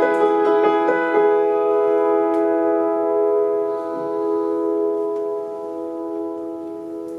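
The closing chord of an instrumental cover played on an upright piano and an electronic keyboard: a few last notes in the first second, then one full chord held and slowly fading.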